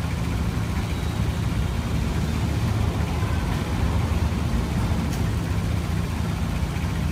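Crane truck's engine running steadily at a low, even hum.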